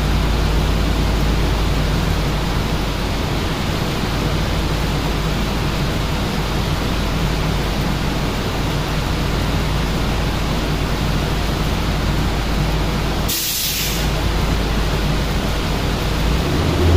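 Steady rushing of air with a low hum underneath, the waiting sound of a chassis dyno cell between pulls with a Coyote V8 Mustang on the rollers. There is a short sharp hiss about thirteen seconds in.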